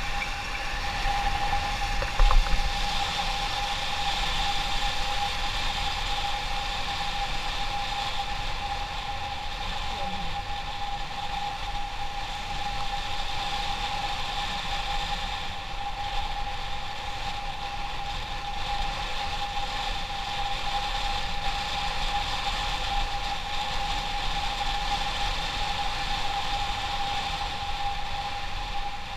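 Motorcycle running steadily under way, with a constant whine and rumbling road noise. A short knock about two seconds in.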